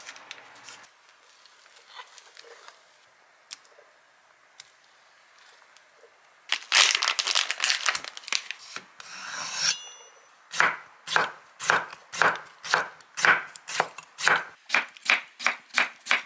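Plastic packaging crinkling as it is torn open. Then a chef's knife slices through a block of pickled radish onto a wooden cutting board, about two cuts a second, quickening near the end.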